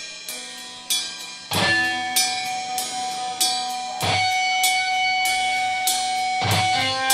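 Live rock band opening a song: cymbal and drum hits over guitar, the full band coming in about one and a half seconds in with held electric guitar notes.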